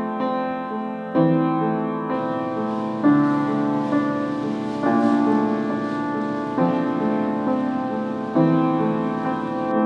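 Piano playing slow, sustained chords, a new chord struck about every two seconds and held until the next.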